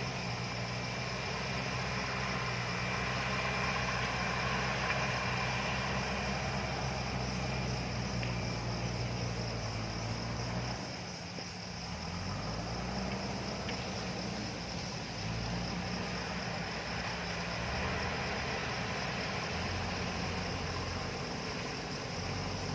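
JCB backhoe loader's diesel engine running steadily; its note dips briefly about halfway through, then carries on at a changed pitch.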